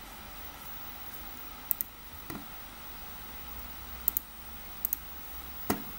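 Computer mouse clicks, mostly in quick pairs, a second or two apart, with one duller knock near the end, over a steady faint background hiss.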